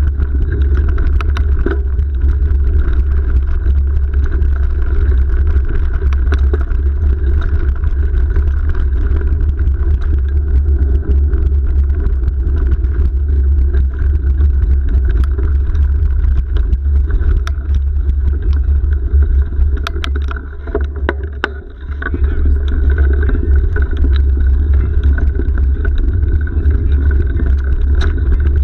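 Steady low rumble of wind buffeting an action camera's microphone and tyre rolling noise from a mountain bike riding a muddy dirt track, with scattered clicks and knocks from bumps. The rumble drops briefly about three quarters of the way through.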